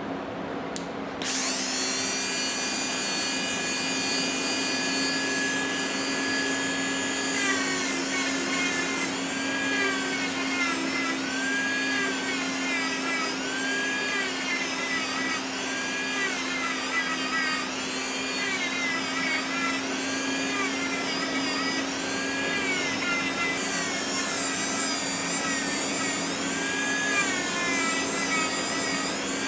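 Electric power tool switching on about a second in and running with a high whine, its pitch sagging and recovering every couple of seconds from partway through, as when the tool is worked against a piece.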